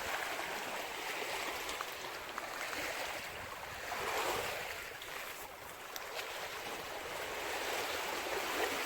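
Small waves washing on a shore: a steady hiss that swells about four seconds in and again near the end.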